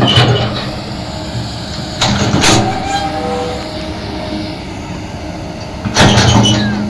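Hydraulic excavator's diesel engine running under a steady low hum, surging louder three times (at the start, about two seconds in, and near the end) as the arm and bucket work.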